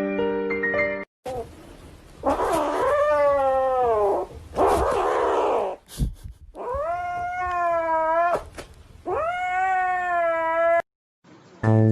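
A cat yowling, about four long drawn-out calls that rise and fall in pitch, one to two seconds each.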